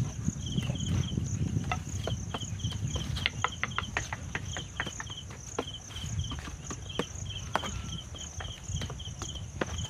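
Hands and forearms knocking against the bamboo arms of a homemade wooden training dummy, sharp irregular strikes several a second at times. Insects chirp steadily in pulsed trills behind them.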